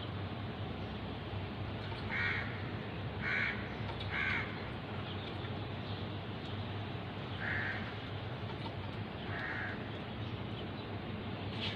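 A crow cawing five times in short calls: three close together, then two more spaced a few seconds apart, over a steady low hum.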